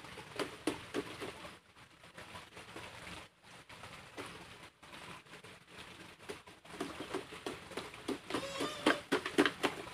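Short bird calls and chirps with scattered sharp clicks and taps; the calls come thickest and loudest near the end.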